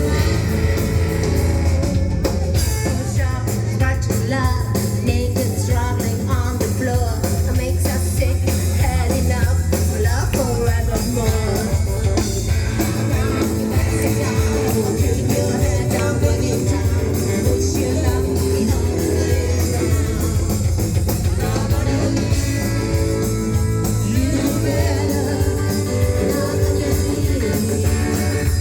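Rockabilly band playing live: a singer over electric guitar, a driving bass line and drums.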